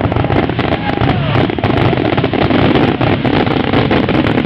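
Fireworks finale barrage: a rapid, unbroken run of bangs and crackles over a steady low rumble.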